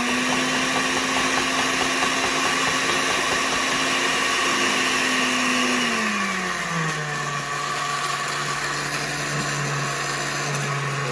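Oster countertop blender motor running steadily on whole graham crackers; about six seconds in its pitch drops to a lower, steady hum. The crackers are too big for the blades and stay mostly whole.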